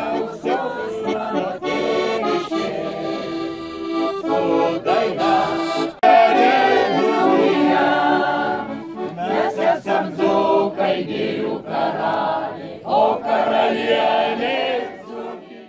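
Accordion playing a traditional folk song while a crowd sings along.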